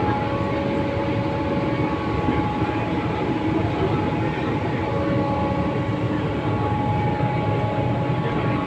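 Loud, steady motor noise inside a running Vande Bharat coach: several constant whining tones over the train's rumble. The uploader blames an overhead traction motor left unrepaired.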